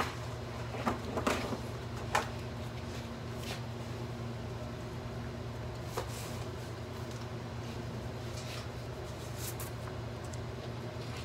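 Office room tone with a steady low hum, broken by a few sharp knocks and clicks in the first two seconds and once about six seconds in, from papers and objects being handled at a desk counter, with some faint rustling later on.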